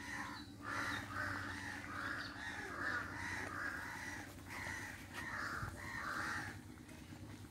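Crows cawing, a rapid run of short, harsh calls that stops about six and a half seconds in.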